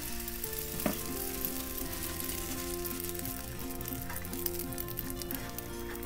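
Egg-soaked slice of bread frying in hot fat in a nonstick pan: a dense, steady sizzle and crackle that starts as the bread is laid in.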